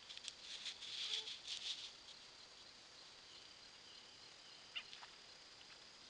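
A deer fawn moving through cut grass: about two seconds of rustling and light crackling footfalls, then a couple of single clicks near the end.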